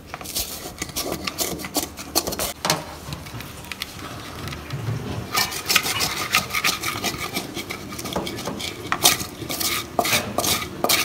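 Wooden spatula scraping burnt food off the bottom of a metal wok in repeated rasping strokes, coming thicker and louder about halfway through. The food has burnt onto the pan.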